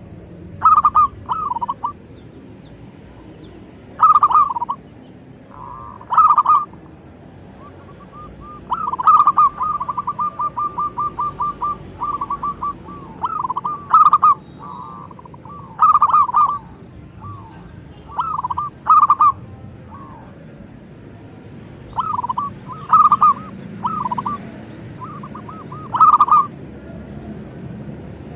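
Zebra dove (perkutut) cooing: short phrases of coos repeated every couple of seconds, with a long run of quick, even notes about nine seconds in.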